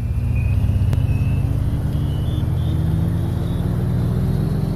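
A ship's diesel engine running steadily, its pitch slowly creeping up, with a faint high whine that climbs steadily above it.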